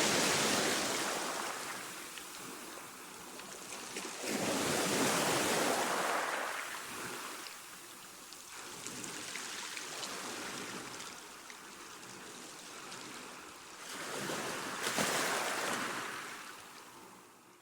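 Calm sea washing onto the shore: three waves break and draw back in slow swells of hiss. The sound fades out near the end.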